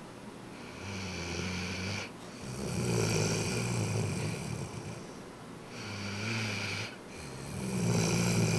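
Rhodesian Ridgeback dog snoring loudly in deep sleep: a low snore on each breath, four or so in a row, each lasting one to three seconds.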